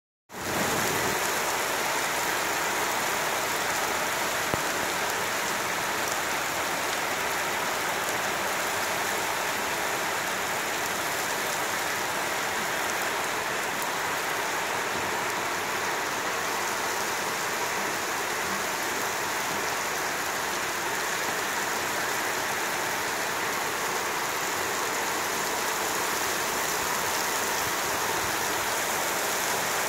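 Heavy rain pouring onto wet paving, an even, unbroken hiss that holds steady throughout.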